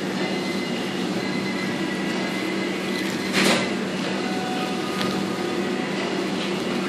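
Steady mechanical hum of indoor machinery, with a few faint steady tones, and one brief hiss of noise about three and a half seconds in.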